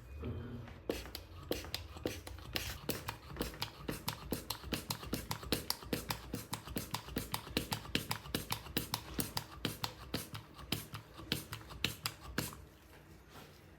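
Rapid, evenly spaced sharp mechanical clicks, about four a second, running for around eleven seconds and then stopping near the end.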